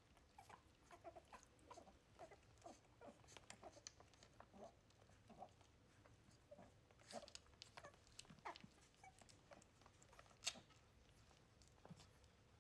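Faint little squeaks and grunts from three-week-old wirehaired miniature dachshund puppies as they suckle, with a few sharper clicks, the loudest about ten seconds in.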